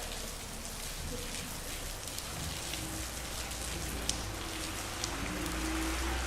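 Steady rain falling in a street, with single drops ticking sharply on hard surfaces. A low hum grows louder over the last couple of seconds.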